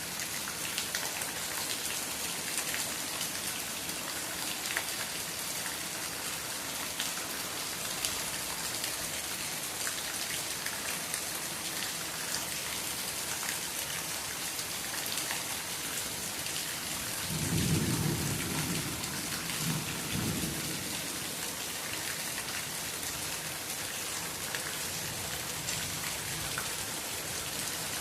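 Steady rain falling on a tree and yard, an even hiss of drops. About two-thirds of the way through comes a brief low rumble of thunder in two rolls, the first the louder.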